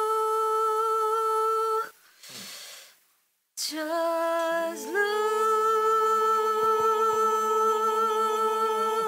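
A woman's singing voice holding long, steady sustained notes on a single vowel, the drawn-out "look" of a vocal exercise. About two seconds in there is a breath and a short gap. Then a new held note starts low and steps up, and a second, lower steady tone sounds beneath it from the middle on.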